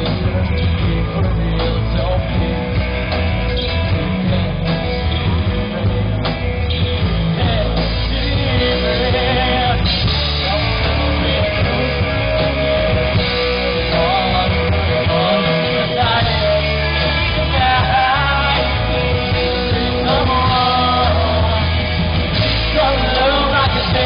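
Live rock band playing through a PA: electric guitars, bass guitar and drum kit, with a lead voice singing, most plainly in the second half.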